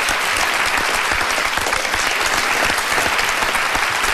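Studio audience applauding: dense, steady clapping.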